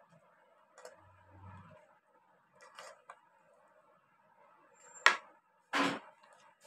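A ladle scooping mutton karahi from the wok onto a serving plate: soft scrapes and light clicks, then a sharp clink about five seconds in, followed by a brief scrape.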